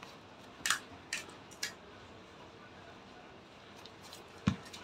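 Crisp fried puri shells cracking as a thumb punches a hole in each, three sharp crackles in the first two seconds. A single dull thump near the end.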